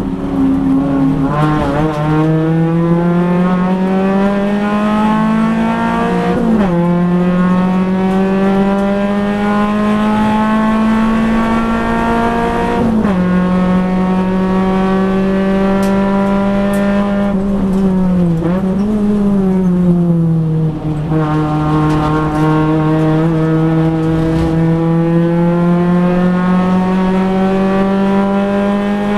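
Nissan Pulsar race car's four-cylinder engine heard from inside the cabin under hard acceleration, climbing in pitch and dropping sharply at two upshifts. It then eases off under braking, with a quick rev blip on a downshift, before pulling up through the revs again.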